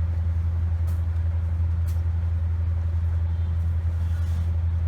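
A steady low hum that holds at an even level, with faint light clicks about one and two seconds in.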